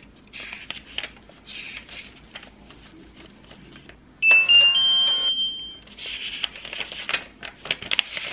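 Small Sinolink label printer giving a short electronic chime of three rising tones as its button is pressed, about four seconds in. Paper pages rustle and flip before and after it.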